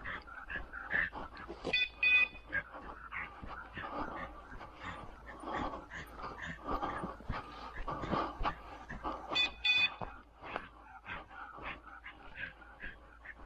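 Footsteps brushing through grass on a trail, with a bird dog moving alongside; two short high-pitched calls, about two seconds in and again near nine and a half seconds.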